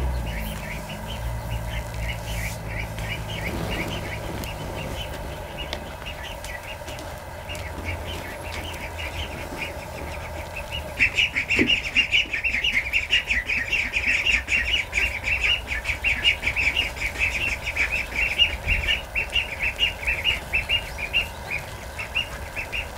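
Birds chirping in a rapid, continuous run of short calls that grows louder about eleven seconds in, over a low steady hum.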